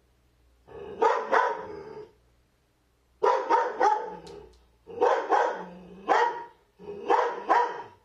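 Dog barking in four bouts, each a run of several sharp barks mixed with longer drawn-out vocal calls, with short quiet pauses between the bouts.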